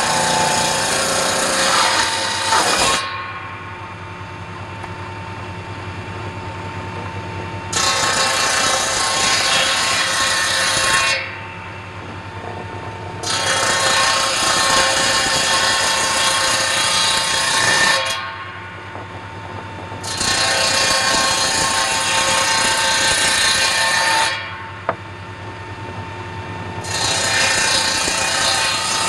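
Saw bench with a circular blade cutting a block of wood in repeated passes: five loud spells of the blade biting into the wood, each a few seconds long. Between them the saw runs free with a quieter steady hum and whine.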